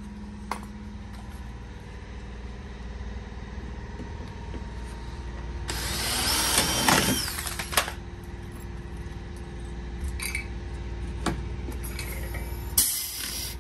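A cordless drill runs for about two seconds near the middle, its whine rising as it spins up, drilling a rivet hole through a carbon-fibre side skirt. Near the end a pneumatic rivet gun gives a short air hiss as it sets a pop rivet.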